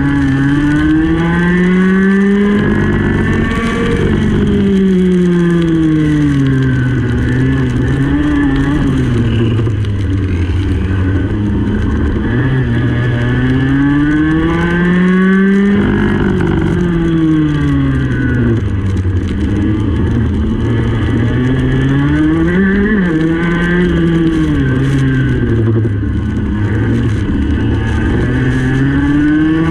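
Racing kart engine heard onboard, revving up along the straights and dropping off into the corners, its pitch rising and falling over and over. The revs fall away sharply about halfway through, then climb again.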